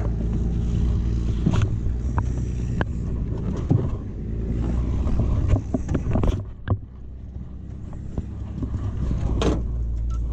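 An engine idling with a steady low hum, amid scattered knocks and clunks. The hum drops away for a moment about six to seven seconds in, then carries on more quietly.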